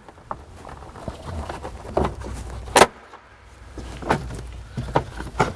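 Hands working inside a plastic truck dashboard's instrument-cluster opening: a few scattered clicks and knocks of plastic and a wiring connector, the sharpest one near the middle, over a low steady hum.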